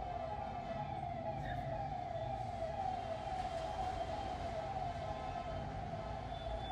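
A siren sounding in a steady repeating cycle, each cycle a falling tone, a little faster than once a second, over a low background hum.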